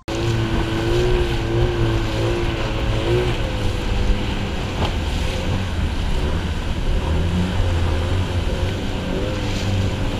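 Outboard motor running on a small aluminium boat in rough, rushing water below a dam spillway, with water splashing against the hull and wind on the microphone. The motor's hum wavers in pitch over the first three seconds.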